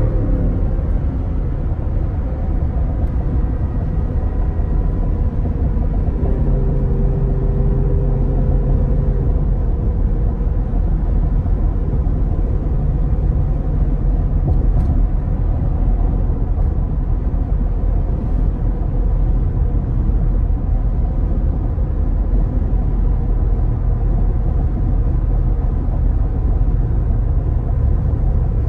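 Ford F-150's 5.0 V8 with a Corsa Extreme exhaust cruising at freeway speed, heard from inside the cab: a steady low rumble of exhaust and road noise, without drone.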